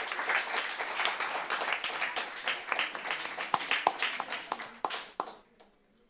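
Audience applauding, the clapping thinning to a few scattered claps and dying out near the end.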